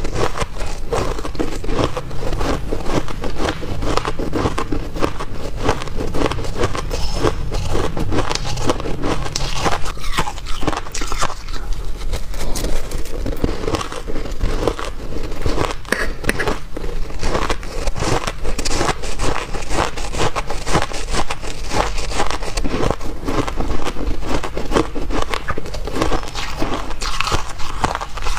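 Close-up chewing of mouthfuls of shaved ice, a dense, continuous run of crisp crunches and crackles.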